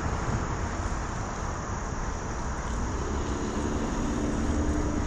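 Road traffic passing overhead: a steady tyre rumble, with a vehicle's engine hum growing louder in the second half.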